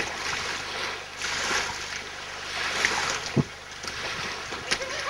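Steady rushing noise of water and wind on the microphone, with a brief low thump about three and a half seconds in.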